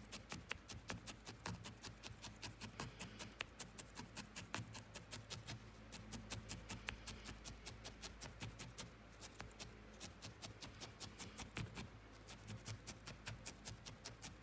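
Felting needle stabbing again and again into wool, rapid regular pokes about four or five a second, as loose wool is felted onto a figure.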